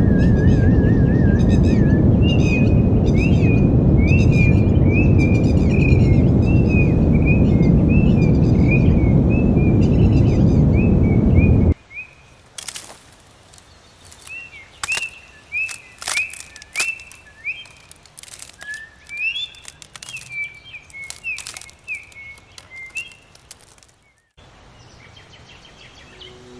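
Loud rushing water, like a waterfall or river, with a bird repeating a short descending chirp about twice a second over it. About twelve seconds in, the water cuts off abruptly, leaving a much quieter forest with scattered bird calls and sharp clicking notes.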